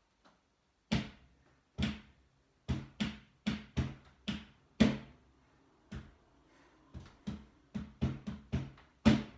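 Crutches used as drumsticks, their tips knocking on kitchen surfaces in a drum rhythm: about sixteen sharp knocks, spaced out at first and coming quicker in the last few seconds, the loudest about halfway and at the very end.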